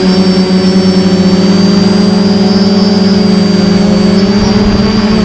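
Homemade quadcopter's motors and propellers buzzing loudly at a steady pitch, with a thin high whine above the buzz.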